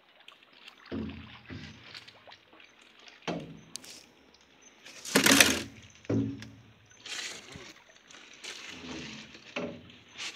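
Paddle strokes in river water from a wooden canoe, coming about every one to two seconds. Each is a low splash or thunk, and the loudest is a sharp splash about five seconds in.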